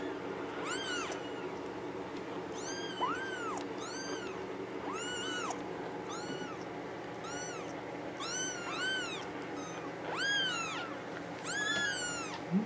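An 18-day-old kitten mewing: about a dozen short, high cries, each rising and then falling in pitch, coming roughly once a second.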